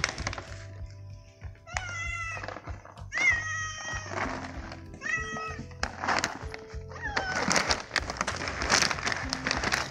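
Hungry cats meowing for food, about four separate meows, while a plastic bag of dry cat food crinkles and rustles as it is opened. Background music plays underneath.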